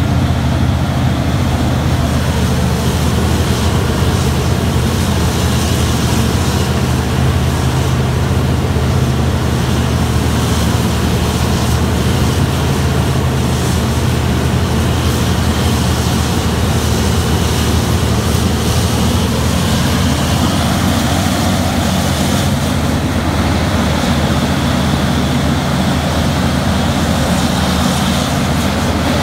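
Engines of a Terex RH170 mining front shovel running steadily under load as it digs and swings: a loud, even, low drone.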